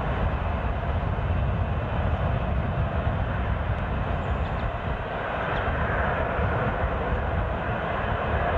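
Antonov An-225 Mriya's six turbofan engines running at taxi power as the aircraft rolls and turns on the runway: a steady jet noise with a heavy low rumble, turning a little brighter about halfway through.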